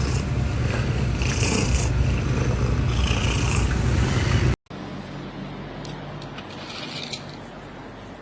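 Domestic cat purring loudly and steadily, a continuous low rumble. About four and a half seconds in it cuts off abruptly to a quieter stretch with a few faint clicks.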